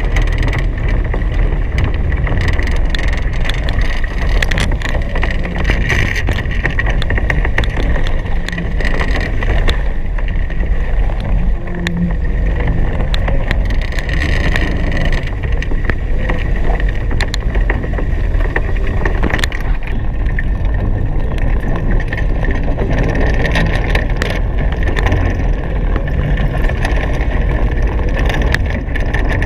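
Steady loud rush of wind and water aboard a Hobie Cat 16 catamaran sailing fast: a constant noise rumbling in the low end, with many short knocks and ticks scattered through it.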